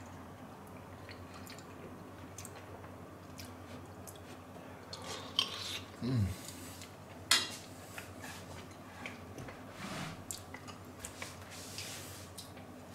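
Spoon clinking and scraping on a plate while a man eats, with quiet chewing, over a low steady hum; a few sharper clinks come a little past halfway.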